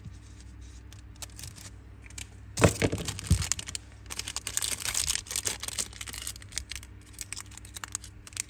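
Zippo lighter being handled: loud metallic clacks of the hinged lid a little under three seconds in, followed by a few seconds of quick scratchy clicking.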